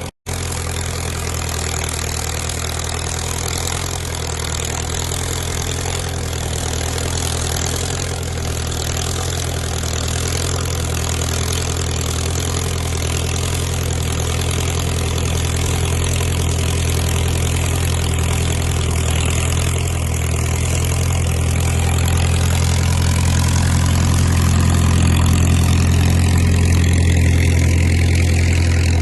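Caterpillar crawler dozer's diesel engine running steadily, with a deep low hum that grows slightly louder over the last third. A split-second dropout right at the start.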